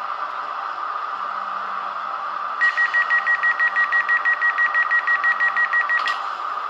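ESU LokSound 5 decoder sound of an ÖBB 4020 S-Bahn door cycle, played through the model's small loudspeaker: a steady standing hiss, then about two and a half seconds in a rapid door-closing warning beep, about seven beeps a second for three and a half seconds, ending with a short click as the doors shut.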